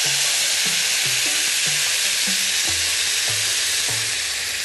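Coconut milk poured from a can into a hot saucepan of rice toasted in oil and curry powder, hitting the pan with a sudden loud sizzle that holds steady and eases off slightly near the end.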